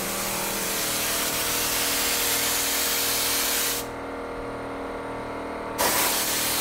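Compressed-air spray gun spraying DAP Weldwood contact cement onto a car's bare roof panel: a long hiss that breaks off for about two seconds and then starts again with a louder burst. A steady hum runs underneath.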